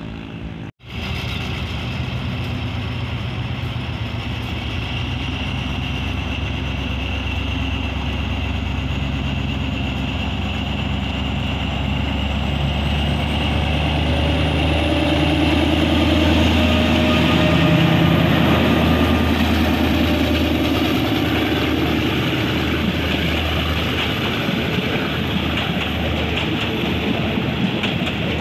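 Alsthom ALD diesel locomotive no. 4305 pulling out slowly and passing close by, its engine running and growing louder to a peak about two-thirds through, with a faint high whine that climbs in pitch as it nears. Passenger coaches then roll past on the rails. The sound drops out briefly about a second in.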